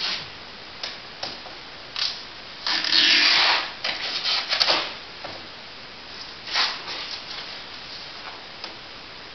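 Masking tape being pulled off the roll in short ripping strips and pressed along a car door's edges. The longest, loudest pull comes about three seconds in and lasts about a second, with several shorter pulls after it.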